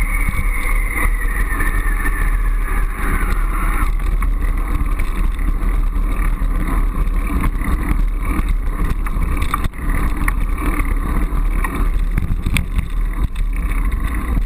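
Steady rumble of wind and road vibration on a GoPro HD camera mounted on a moving bicycle, with a few sharp clicks and rattles. A faint whine falls in pitch over the first two seconds.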